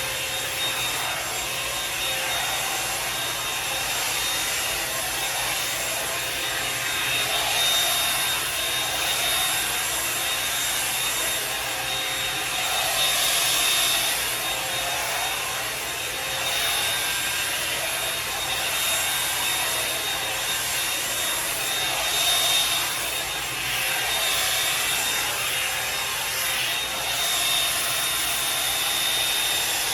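Revlon One-Step hair dryer brush running, its fan blowing with a thin steady high whine, while the bristles rub through hair, the sound swelling and dipping as it is drawn along.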